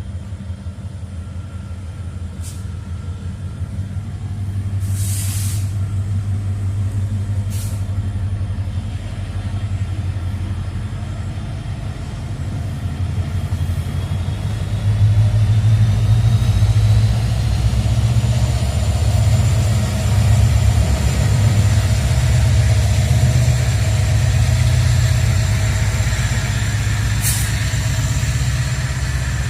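Diesel locomotive of a long Babaranjang coal train running, its engine drone growing louder as it approaches. Several short sharp hisses of air cut in, and a faint rising whine appears about halfway through.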